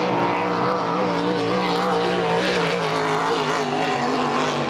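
Racing powerboat engine running hard at high revs, its pitch wavering as the boat skims across the water.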